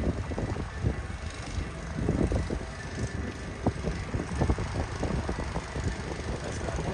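An engine running steadily with a low rumble, under irregular gusts of wind on the microphone.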